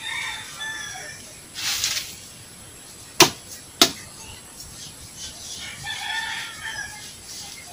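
A rooster crowing at the start and again about six seconds in. Between the crows comes a short rush of material tipped out of a bucket, then two sharp knocks just over half a second apart, which are the loudest sounds, as the bucket is emptied.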